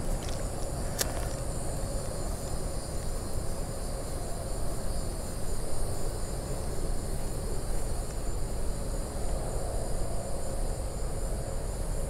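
Steady high-pitched insect chorus of crickets trilling, over a low even rumble, with one sharp click about a second in.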